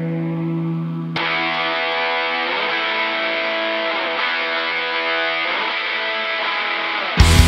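Intro of a pop-punk song on distorted electric guitar, sounding thin with the highs cut off, filling out about a second in. Near the end the full band comes in loudly with drums and bass.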